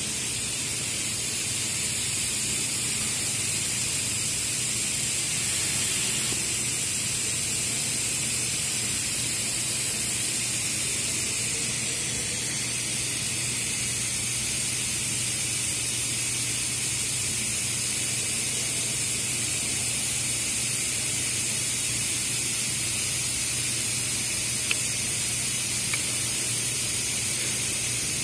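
Steady hiss of rushing air with a low hum underneath, in a sandblasting room where no blasting is being done; two small ticks near the end.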